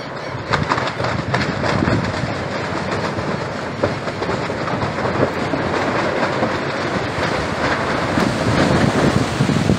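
Strong wind of an arriving dust storm buffeting the microphone: a loud, continuous rumble with many crackles and rattles, growing a little louder near the end.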